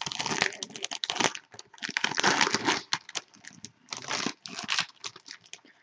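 Crinkling and tearing of a trading-card pack wrapper being opened by hand, a dense irregular run of crackles and rustles with louder stretches near the start and about two seconds in.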